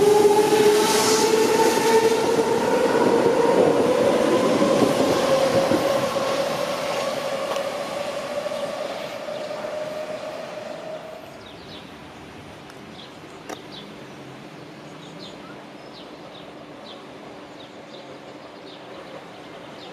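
Electric train pulling away and accelerating: its traction motors whine in a pitch that rises steadily while the sound fades over about ten seconds. Only faint scattered ticks remain after that.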